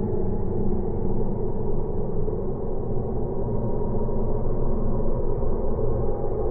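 A steady low rumble with held droning tones underneath, the ride film's soundtrack as the view glides forward.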